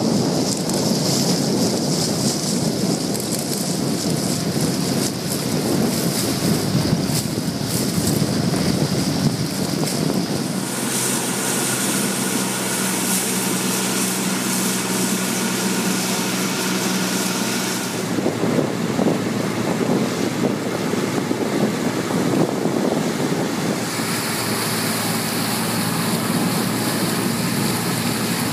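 Wind buffeting the microphone and water rushing past a small sailboat under way. The character changes abruptly a few times. In the middle stretch a steady motor hum joins in.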